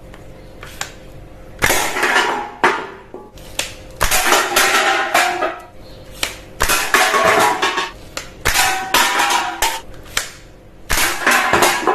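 Toy guns firing: a string of short noisy bursts of shooting sound, with sharp plastic clicks between them.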